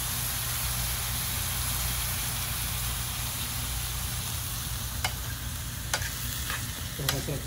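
Cubes of steak sizzling as they sear in a hot skillet. In the second half come a few sharp clicks of metal tongs against the pan as the meat is turned.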